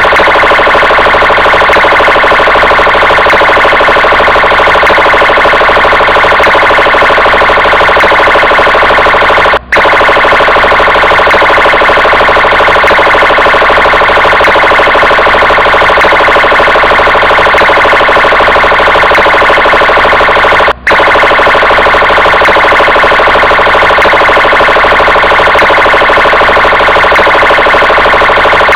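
Brazilian police car siren sounding continuously, a loud electronic tone that cuts out for an instant twice, about ten and twenty-one seconds in.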